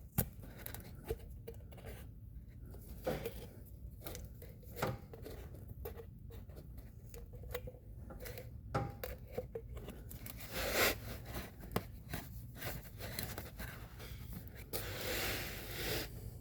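Hands working on the differential: scattered small clicks and scrapes of tools and parts, with a brief tearing or rustling sound about ten seconds in and a longer rustle near the end.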